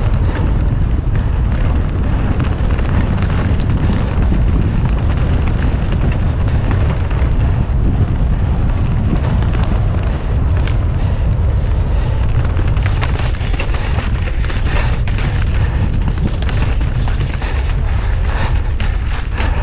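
Wind buffeting on the microphone during a fast mountain-bike descent: a loud, steady low rumble. Frequent sharp knocks and rattles from the bike running over rough ground come thicker in the last few seconds.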